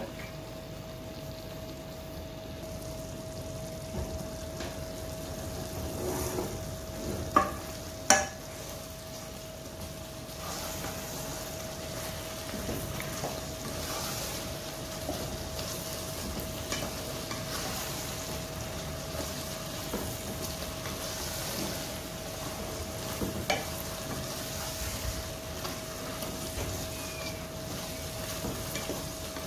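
Wooden spatula stirring chicken curry in a non-stick pan while the gravy sizzles, the sizzle growing fuller after about ten seconds. Two sharp knocks come about seven and eight seconds in, over a faint steady hum.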